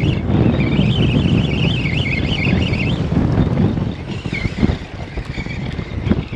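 Wind buffeting the microphone in a loud low rumble, easing about four seconds in. A wavering high whistle runs over the first three seconds, and a few light clicks follow near the end.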